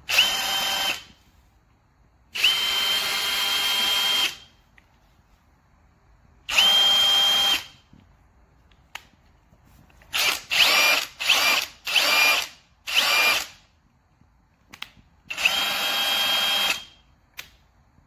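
Ryobi ONE+ HP 18V brushless cordless impact wrench (P262) run free in the air in repeated trigger pulls: about nine bursts of motor whine, some lasting one to two seconds and a quick run of five short blips in the middle, each rising in pitch as the motor spins up and falling away when released.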